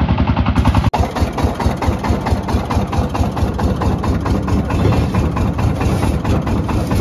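Three-wheeled farm truck's engine running with a fast, even chugging of about ten knocks a second. After about a second it turns to a rougher, less regular engine noise as the truck is driven.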